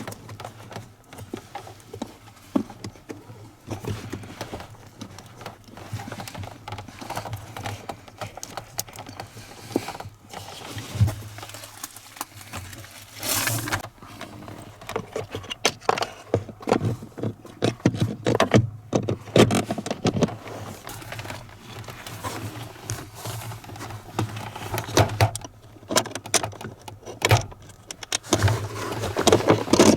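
Hand work on plastic car interior parts: irregular clicks, taps and rattles, with a longer scraping noise about 13 seconds in, over a steady low hum.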